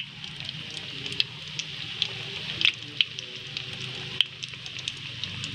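Breadcrumb-coated corn dogs deep-frying in hot oil in a wok, left to fry until they brown: steady sizzling with frequent sharp pops and crackles.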